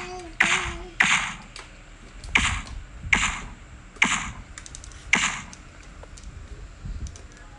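Plastic toy dump truck and its cage-like bed being handled: about six sharp plastic clacks, roughly one a second, with faint rattling between.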